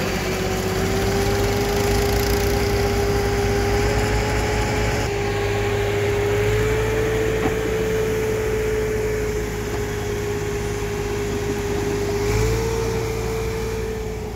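Massey Ferguson 240 tractor's three-cylinder diesel running steadily at raised revs while its hydraulics lift a loaded tipping trolley, with a steady whine that steps up slightly in pitch a few times.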